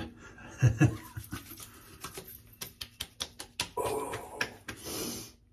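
Hands quickly patting aftershave onto a freshly shaved face and neck: a run of short sharp pats, about five a second. Near the end comes a drawn-out "ooh" and a sharp breath as the aftershave stings the skin.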